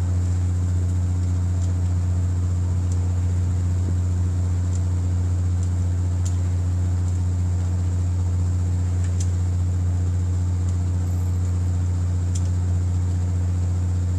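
A fishing boat's engine running steadily, a constant low hum, with a few faint ticks.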